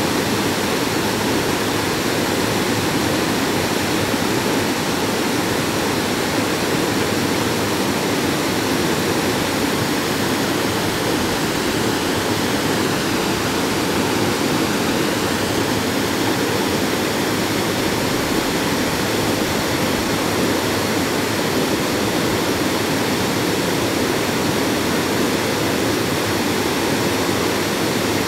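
Water of Havasu Creek rushing steadily over small step cascades, an even, unbroken loud noise of white water.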